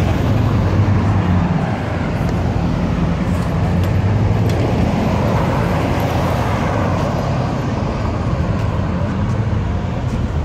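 Steady city street traffic: cars driving past on a busy road, with a low engine hum underneath.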